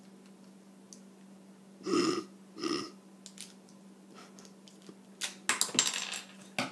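A person burps twice in quick succession, about two seconds in. Near the end comes a short flurry of sharp clicks and rattles, over a faint steady hum.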